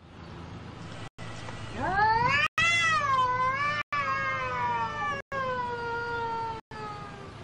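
Domestic cat yowling at a rival cat during a standoff: one long, drawn-out caterwaul that rises steeply about two seconds in, wavers, then slowly falls in pitch. This is a territorial, aggressive warning call. The sound is broken by brief, regular dropouts.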